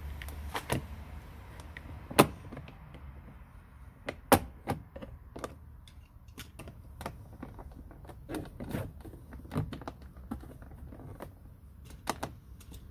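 Plastic trim-removal tool prying at a car door panel's pull-handle trim: irregular plastic clicks and knocks, with two sharp snaps about two and four seconds in.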